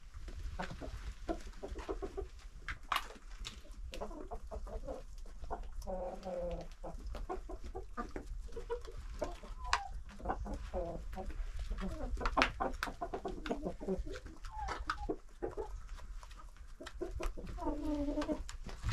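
A flock of domestic hens and roosters clucking softly among themselves as they feed, with a few longer drawn-out calls and scattered sharp ticks of pecking.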